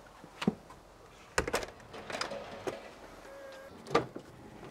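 A run of clicks and knocks from doors being handled. The car's driver door is opened with a loud knock near the end.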